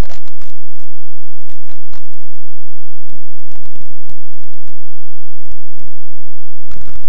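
Irregular crackling and clicking noise, dense and uneven, with short gaps about a second and five seconds in.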